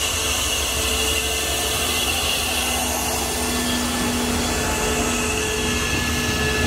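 State Railway of Thailand CSR Qishuyan CDA5B1 diesel-electric locomotive No. 5112 running past at close range: a steady engine drone with a high whine and hiss.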